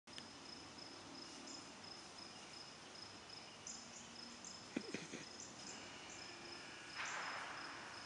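Crickets chirping: a faint, high trill that pulses rapidly and runs steadily. About seven seconds in, a louder, brief rush of hiss-like noise rises over it.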